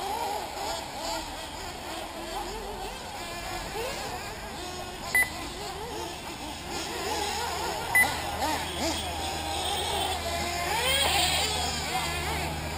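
Several 1/8-scale nitro RC buggies' small two-stroke glow engines whining around the track, their pitches rising and falling as they accelerate and brake. A higher whine sweeps up and down near the end. Two short electronic beeps come about three seconds apart.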